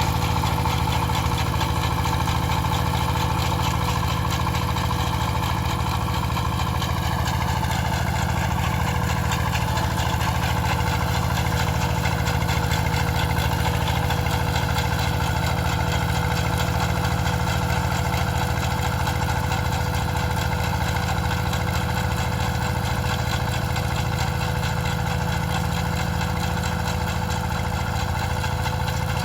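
Engine of a potato-digging farm machine running steadily, its pitch sagging slightly about a quarter of the way through.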